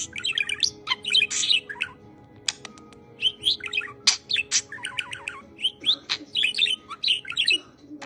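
Budgerigar chattering: rapid high chirps and warbles in bursts, mixed with sharp clicks, thinning to a few clicks for about a second near two seconds in before the chatter picks up again.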